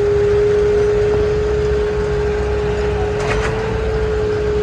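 Suzuki Cultus 1.0-litre three-cylinder engine idling steadily just after being started, a low rumble with a steady hum running through it. The engine is running on its newly repaired engine-mount bracket and bolts.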